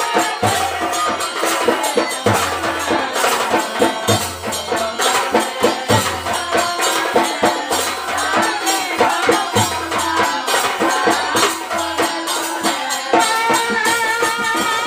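Live Manbhum folk music: a wavering melody over a barrel drum's deep beat, about one every two seconds, with fast jingling metal percussion.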